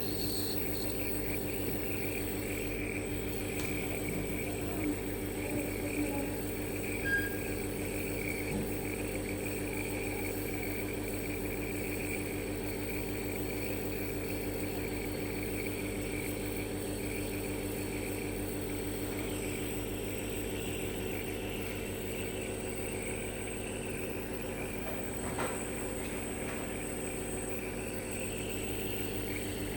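Nebulizer compressor running with a steady hum and an airy hiss, giving a child inhaled medicine for a flare-up of cough and shortness of breath.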